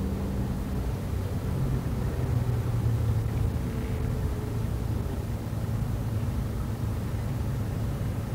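A car's engine and road noise heard from inside the cabin: a steady low hum while the car creeps along in slow traffic.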